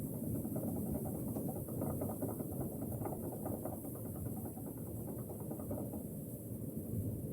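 Strong winter wind blowing steadily in low gusts, with a dry rustle of bamboo in it that drops away about six seconds in.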